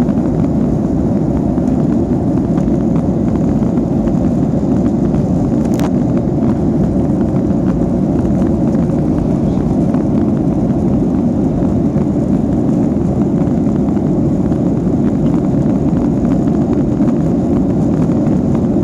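Steady engine and airflow noise of a Boeing 737 heard inside the cabin during the climb after takeoff, with one brief click about six seconds in.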